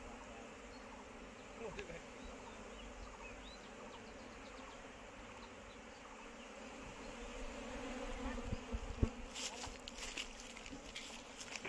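Steady buzzing hum of a swarm of Asian honeybees (Apis cerana indica) settled in bushes. Near the end, a couple of knocks and scratchy rustling close to the microphone.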